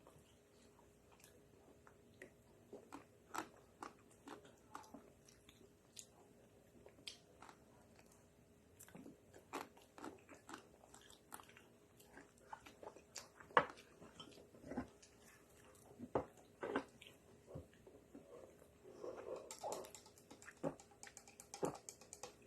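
Biting and chewing of a Magnum ice cream bar, its chocolate coating cracking and crunching in short, irregular clicks.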